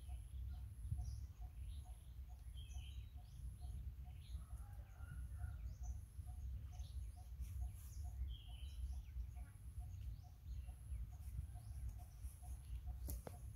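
Outdoor bush ambience: birds chirping now and then, a low note repeated evenly about two or three times a second, and a high, evenly pulsing whine, all over a steady low rumble.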